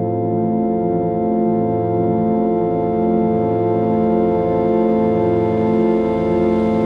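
Meditation drone music: layered steady tones held like an organ chord, with a slow, even throb in the low notes.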